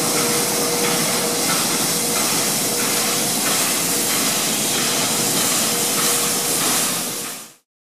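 NSW C36 class steam locomotive 3642 drifting past with a loud, steady hiss of escaping steam and a faint steady tone beneath it. The sound fades in at the start and fades out near the end.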